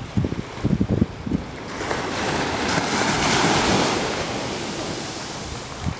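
Wind buffeting the microphone for about the first second and a half, then a small wave breaking on the sand and washing up the beach: a rush that swells to its loudest near the middle and slowly fades.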